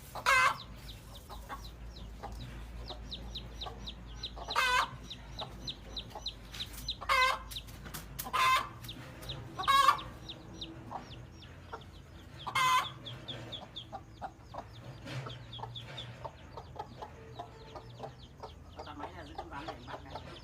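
Hen giving six loud squawking calls a few seconds apart, with chicks peeping faintly and continuously underneath.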